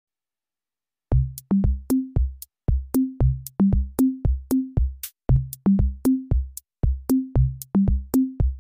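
Background music: an electronic beat of short low drum-and-bass notes stepping between a few pitches, about three a second, starting about a second in.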